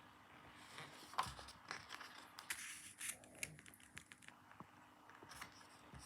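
A sheet of paper being handled and folded, with soft crinkling and rustling and a run of small crackles in the middle.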